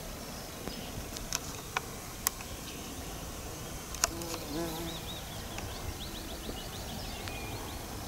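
A flying insect buzzes briefly past the microphone about halfway through, with a wavering pitch, over open-air background noise. A few sharp clicks come in the first half.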